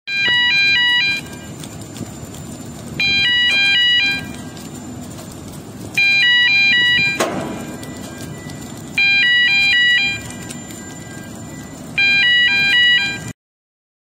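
Electronic warning alarm of a ship-to-shore container crane: a short melody of high tones stepping back and forth, about a second long, repeated five times at three-second intervals over a steady machinery rumble, with a single knock midway.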